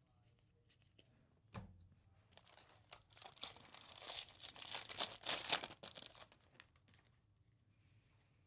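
A thump about one and a half seconds in, then the foil wrapper of a Topps Series 2 baseball card pack crinkling and tearing open for several seconds.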